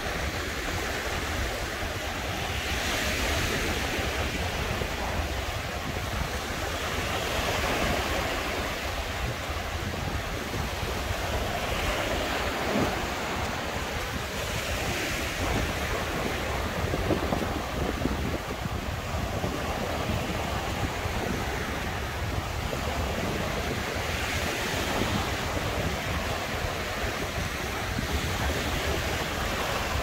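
Sea surf breaking on the shore, a wash that swells and falls back every few seconds, with wind rumbling on the microphone.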